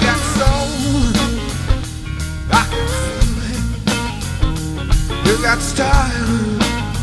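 Blues-rock band recording playing an instrumental passage: electric guitar playing lead lines with bent, wavering notes over bass and a steady drum beat.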